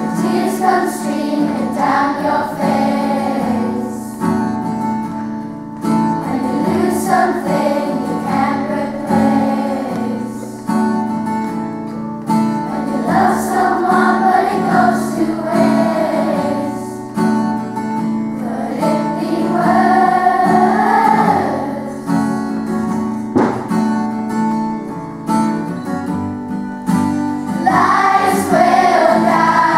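A children's choir singing in unison in phrases of a few seconds, to a strummed acoustic guitar. A single sharp knock cuts in about three-quarters of the way through.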